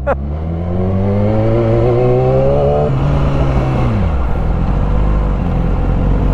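Car engine accelerating, its pitch rising for about three seconds, then dropping away about four seconds in as the revs fall, over a steady low road rumble.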